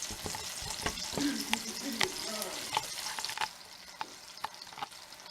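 Trout fillets frying in a pan: a steady sizzle of hot oil with scattered crackles and pops, easing down a little past halfway.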